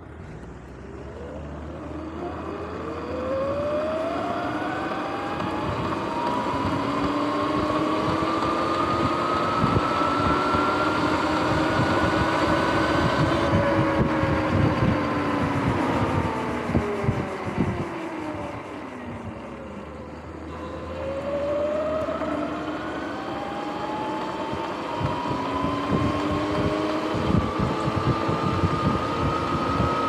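Sur-Ron X electric dirt bike's motor and drivetrain whining as it pulls away from a stop, several tones climbing together with speed, falling as it slows about two-thirds of the way through, then climbing again. Wind buffets the microphone throughout.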